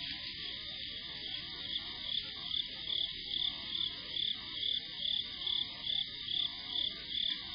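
Night insect chorus: a steady high-pitched trill, joined about a second and a half in by a louder insect chirping evenly, about two and a half chirps a second.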